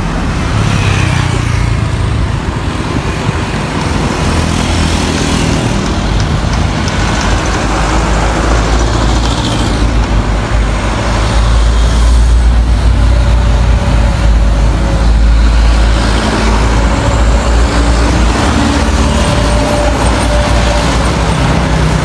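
Road traffic: cars and motor scooters passing on a village road, a continuous loud rumble with no pauses, a little louder from about halfway through.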